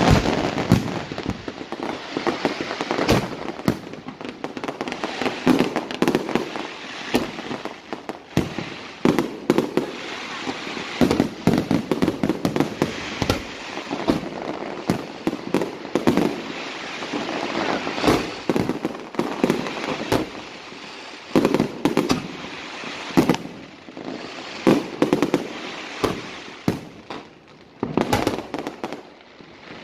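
Aerial fireworks display: a continuous barrage of shells bursting, sharp bangs every second or so over a dense crackling of stars and firecracker-like salutes.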